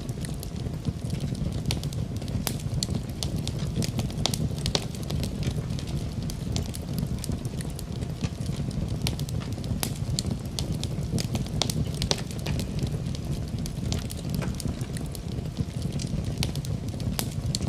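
Wood fire burning in a fireplace, crackling with frequent irregular sharp pops and snaps over a steady low rumble.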